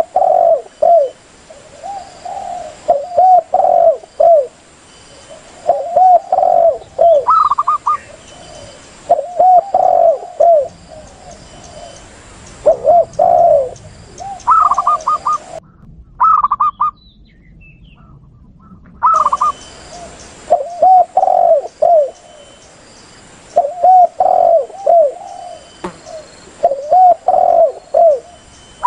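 Spotted doves (tekukur) cooing in repeated phrases every two or three seconds, mixed now and then with quicker, higher-pitched runs of zebra dove (perkutut) coos. This is a dove lure-call recording for drawing in wild doves.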